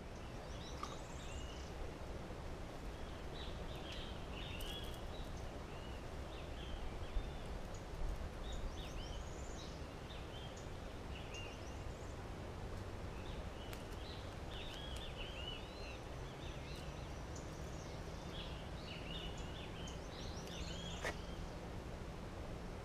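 Small birds chirping repeatedly in mangrove over a steady low outdoor rumble. A low steady hum comes in about two-thirds of the way through.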